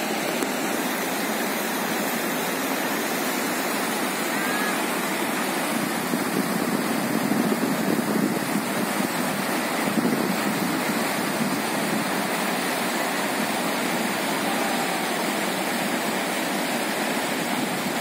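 River rapids rushing over rocks: a steady, unbroken rush of water.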